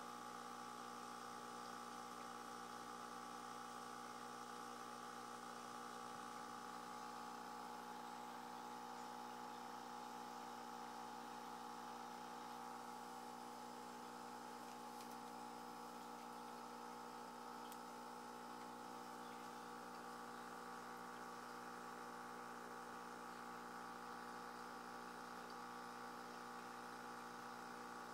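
Faint, steady hum of aquarium equipment: several steady tones held without change.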